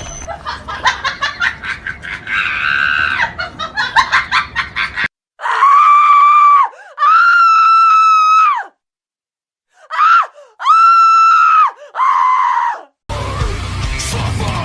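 A series of loud, high-pitched screams, each held on a steady pitch: a long scream, a second long one, a short one, another long one and a short one, with brief silences between them. They are preceded by a run of quick clicks and rustling.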